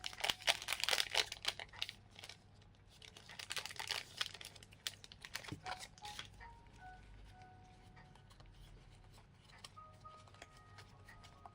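A trading card booster pack's wrapper being torn open and crinkled by hand, in two bouts of crackling rips, then handled more quietly. Faint background music with held notes runs under the second half.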